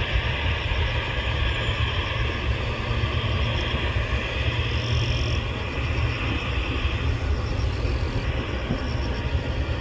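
General Electric GEnx turbofan engines of a Boeing 787-9 running as the airliner rolls along the ground: a steady low rumble with an even rush above it.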